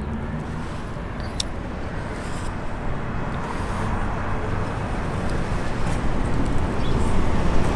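Road traffic noise from passing cars, an even rush that slowly grows louder, with one sharp click about a second and a half in.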